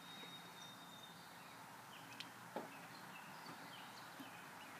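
Near silence: faint outdoor background with a couple of soft taps.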